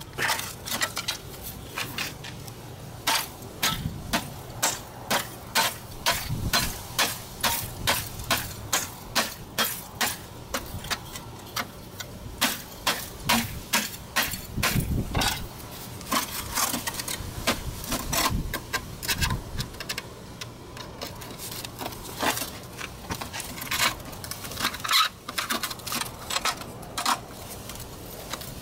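Screwdriver prying and knocking at the cut seam of a sheet-steel scooter muffler: a long, irregular series of sharp metallic clicks and knocks, often one or two a second.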